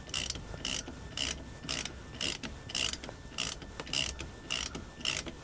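Socket ratchet clicking in steady back-and-forth strokes, about two a second, as it tightens the nut on the lower rear shock absorber mount bolt.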